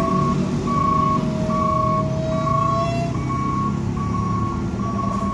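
Mitsubishi Fuso bulk tanker truck's engine running in a slow uphill climb, with an electronic warning beeper sounding about twice a second and a longer steady tone under the beeps for about two seconds near the start.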